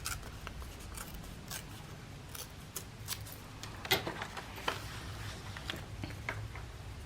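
Scissors cutting paper in short, irregular snips, with light paper handling.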